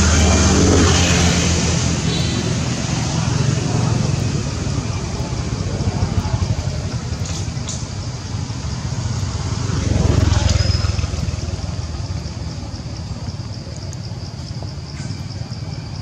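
Vehicles passing, a broad rumbling noise that swells about a second in and again about ten seconds in, then fades, over a steady background hum. A faint high, rapid insect-like pulsing runs under it in the second half.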